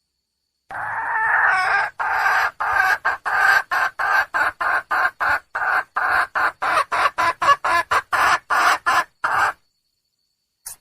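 Red junglefowl hen calling for a mate: one longer call, then a fast run of short clucking calls, about three a second, that stop suddenly. A brief click follows near the end.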